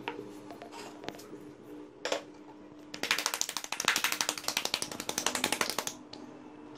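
Hands slapping a thick rolled-out roti of wheat-flour dough back and forth between the palms: a fast run of flat slaps lasting about three seconds, after a single knock about two seconds in.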